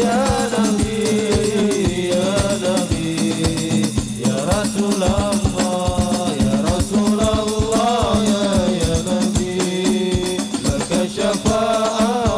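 Sholawat ensemble performing: male voices sing a long, gliding devotional melody over rebana frame drums beaten in a steady rhythm.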